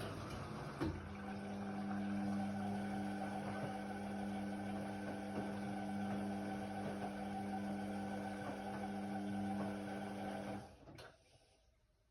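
Indesit WIDL 106 washer-dryer running with a steady hum. The hum comes in with a click about a second in. Near the end the machine stops abruptly with a click and falls to near silence.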